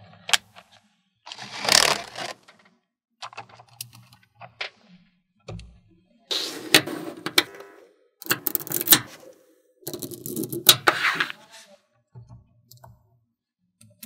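Small magnetic balls clicking and rattling as they are snapped together and pushed into place, in several short rattly bursts with sharp clicks.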